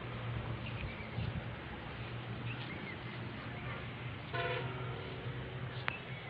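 A vehicle horn toots once, for about half a second, over a steady low rumble; a sharp click follows shortly before the end.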